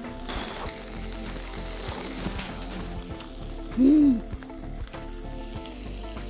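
Thin-sliced beef brisket (chadolbaegi) sizzling steadily on a hot grill. A short, loud pitched sound that rises and falls cuts in a little before the middle.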